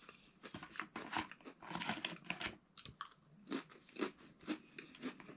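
Close-up chewing and crunching of a chocolate fudge-covered graham cracker cookie, with repeated crisp crunches coming about twice a second in the later part.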